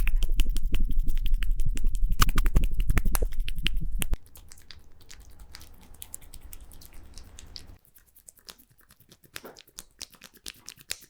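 Rapid, dense clicks and taps from hands working on the head and skin, typical of champi head-massage tapping and finger snapping, over a low rumble. About four seconds in the rumble drops away and the taps turn fainter, and after about eight seconds only scattered clicks remain.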